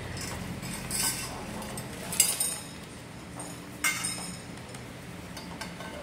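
Pink-painted metal tubes of a knock-down rack clinking against each other as they are handled and fitted together: three sharp clinks spread over a few seconds, the middle one the loudest.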